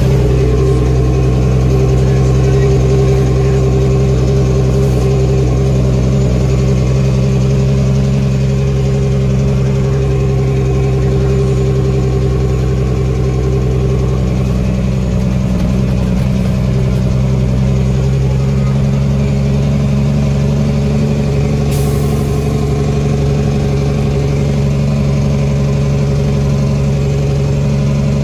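Heavy diesel truck engine running at a steady speed, its pitch holding level throughout.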